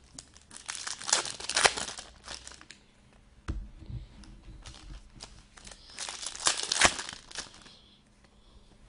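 Foil trading-card pack wrapper crinkling and tearing in two bursts as packs are opened, with cards being handled. There is a single light knock between the bursts.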